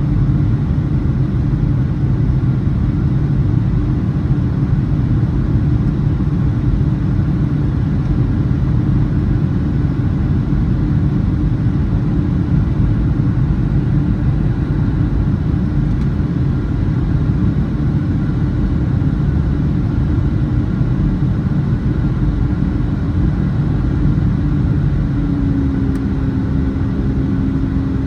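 Boeing 757-300's jet engines running: a loud, steady low rumble with a constant hum that drops slightly in pitch near the end.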